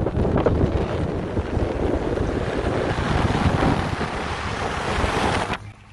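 Wind rushing and buffeting over a phone's microphone in a moving car, with road noise underneath. It cuts off suddenly near the end.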